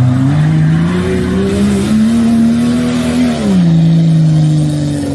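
Off-road SUV engine revving hard under load on a steep side-slope. The pitch climbs over the first three seconds, drops sharply about three and a half seconds in, and then holds lower.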